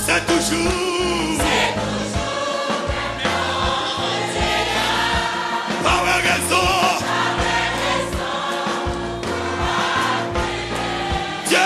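Gospel worship music: a choir singing over instrumental backing with a steady beat.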